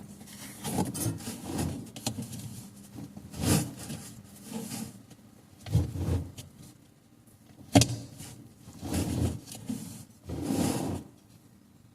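Washing machine parts being handled and worked on: irregular rubbing and scraping with a few sharp knocks, the loudest about eight seconds in.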